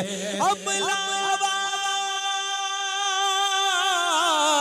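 A man singing a long held note of a devotional naat into a microphone. His voice slides up about half a second in, holds the note with a slight waver, and falls to a lower note near the end.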